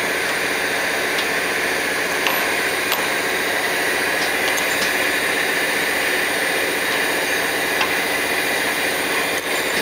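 Steady, even machine noise of factory equipment running, with a few light clicks as a hook spanner is worked on the PVC extruder's crosshead.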